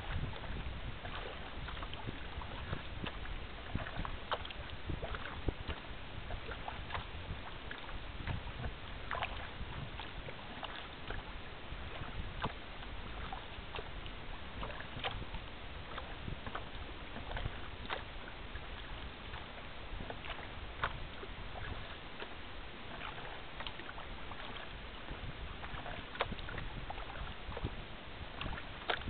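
Water splashing and lapping against a rotomoulded sea kayak's hull as it is paddled across choppy open water, with frequent small irregular splashes over a steady low rumble.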